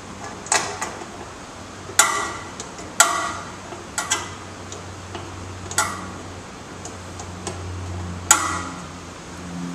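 1/8-inch Allen key clicking and clinking against small screws and the metal cover of a TV mount while the cover is fastened: a series of sharp metallic ticks at irregular intervals, each with a brief ring, the loudest about two, three and eight seconds in.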